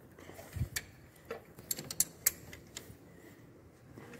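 Irregular sharp metallic clicks and taps of a wrench on the 13 mm timing-belt tensioner bolt as it is tightened, the loudest about two seconds in.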